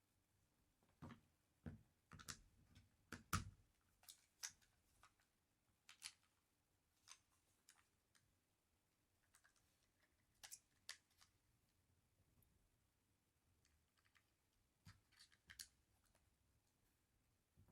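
Scattered small clicks and taps of airsoft 1911 pistol parts being handled and fitted, a Tokyo Marui V10 Ultra Compact getting a ring hammer. The clicks come in a quick cluster in the first few seconds, the loudest about three and a half seconds in, then more sparsely.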